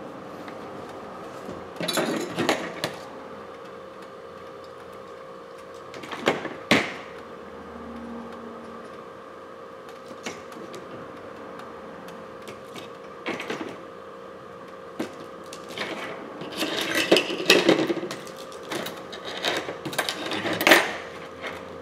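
Replacement screen's cardboard box and plastic tray being handled on a bench mat: scattered clicks, taps and light knocks, a few near the start, a pair about a third of the way in, and a busy cluster near the end, over a steady background hum.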